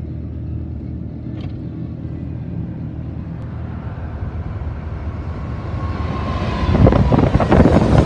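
Steady low hum of a car driving. Near the end it gives way to a loud rush as a freight train's diesel locomotives, a CSX GE ES44DC and Union Pacific units, pass close by the open car window, mixed with wind buffeting.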